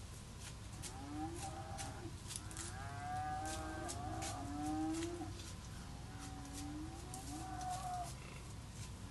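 Whitetail buck grunting: a series of short, faint grunts that slide in pitch, the rutting buck's grunts as he searches for a doe. Scattered crackles of dry leaves underfoot run through them.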